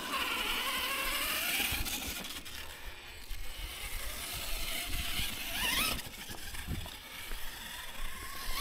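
Losi LMT Grave Digger 1/10 RC monster truck driving on a 2S battery: its brushless motor whines, rising and falling in pitch as it speeds up and eases off, over tyre and drivetrain noise as it goes over its first small jumps.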